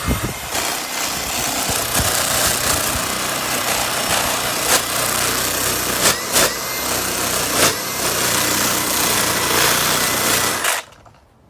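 Homemade flap sander, strips of cut sanding belt on a bolt, spinning under power against a wooden chainsaw carving, a loud steady whirring rasp. Several sharp knocks stand out, where the belt strips catch on the wood and the sander kicks. The sanding stops about ten and a half seconds in.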